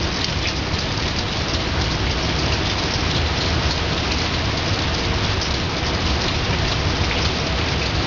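Steady, heavy rain falling and pattering on surfaces in a storm.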